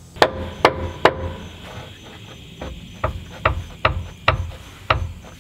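Hammer blows on the steel pins of a boat trailer's support stand, each a sharp clank with a short metallic ring. There are three strikes in the first second, then after a pause of about two seconds five more, roughly half a second apart. The pins are rusted stuck after years without moving.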